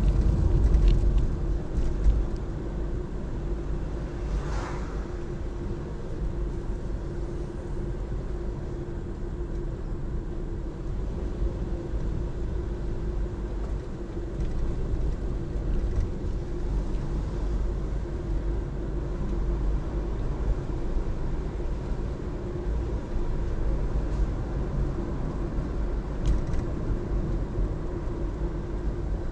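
A car driving at a steady pace: constant low engine and road rumble with a steady hum.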